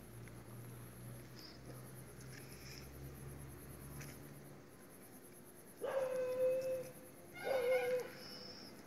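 Two pitched calls, about a second and then under a second long, each held on one steady note, over a faint high pulsing trill of insects.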